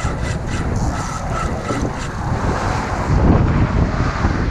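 Wind buffeting the body-worn camera's microphone, a steady low rumble.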